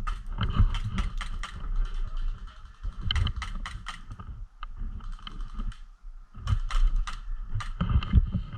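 Airsoft electric gun firing in three quick bursts of rapid mechanical clicks, near the start, about three seconds in and again near the end, with low rumble of movement and handling underneath.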